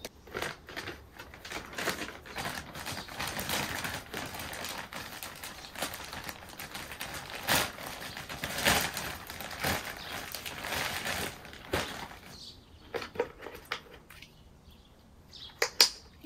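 Rustling and crinkling as potted plants and gardening things are handled, with many small knocks mixed in. It dies down about three-quarters of the way through, leaving a few sharp clicks near the end.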